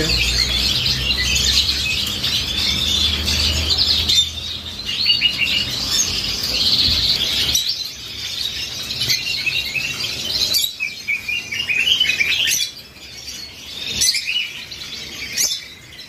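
Many caged finches chirping together: a dense, continuous chatter of short high notes from a crowd of small birds. A low rumble sits underneath for the first half, and a few sharp clicks sound later on.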